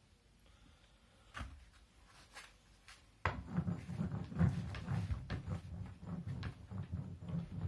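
A homemade drawing machine made from junk: a few light handling clicks, then a little over three seconds in it starts up and rattles and clatters irregularly against the plastic tub with a low buzz underneath.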